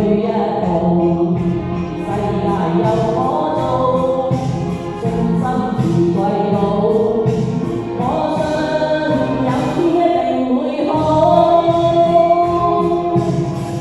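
Cantopop karaoke backing music with choir-like voices carrying the melody and no transcribed words.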